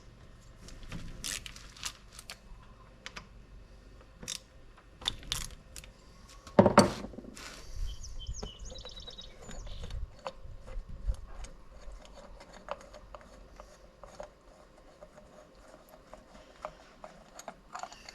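Scattered metallic clicks and clinks of hand tools and bolts as the cam cover is unbolted from a Yamaha Warrior 350 engine. There is one louder clank about seven seconds in and a short run of quick ticks just after it.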